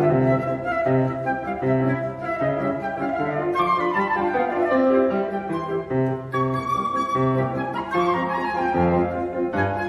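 Gold-coloured concert flute playing a classical piece with piano accompaniment. There is a falling run about four seconds in, then a long held note, over a repeating pattern of low notes.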